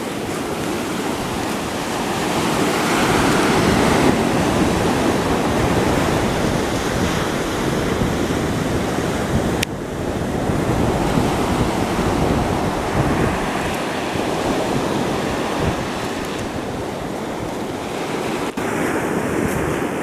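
Rough surf breaking and washing up the shore, a steady rushing that swells a few seconds in, with wind buffeting the microphone.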